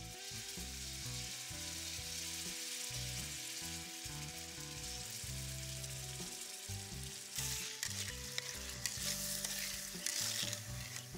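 Sauce sizzling and frying in a wok on a portable gas burner, while a metal ladle stirs it. For the last few seconds the stirring turns brisker, with the ladle clinking and scraping against the pan.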